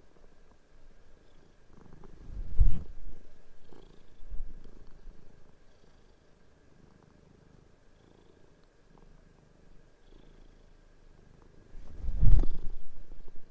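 Domestic cat purring, a low rough rumble that swells loud about two and a half seconds in and again near the end, fading almost away in the middle.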